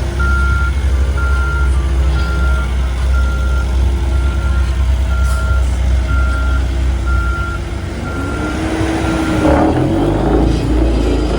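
Heavy construction machine reversing: its backup alarm beeps about once a second, ten times, over a loud, steady engine rumble. Near the end the alarm stops and the engine note rises.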